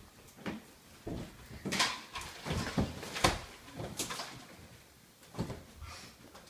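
Scuffling on a wooden floor: a string of separate knocks, thumps and footfalls about every half second, the sharpest around three and four seconds in.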